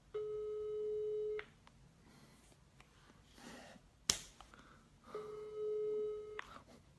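Telephone ringback tone over a phone's speaker: two steady rings, each about a second and a quarter long and five seconds apart, meaning the called number is ringing and not yet answered. A sharp click sounds between the two rings.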